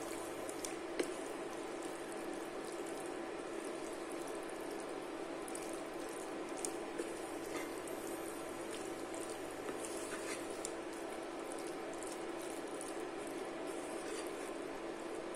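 Thick tomato chutney with haddock simmering in a non-stick pan while being stirred with a wooden spoon: a steady wet bubbling hiss with scattered soft crackles and light spoon clicks, the sharpest about a second in.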